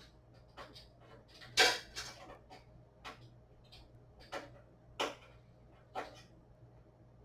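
Small, sharp clicks and taps of a screwdriver and screw against a PC case's motherboard standoffs while a screw is being lined up, about seven in all with the loudest early on. The screw won't line up with its hole.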